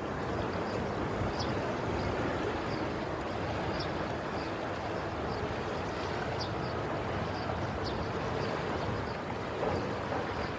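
Steady wash of sea waves, with short faint high chirps every second or so and a steady hum coming in near the end.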